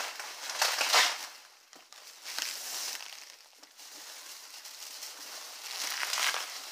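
Plastic bubble wrap crinkling and rustling as it is handled and pulled off a box, in three bursts: about a second in, around the middle, and near the end. The first burst is the loudest and carries a soft bump.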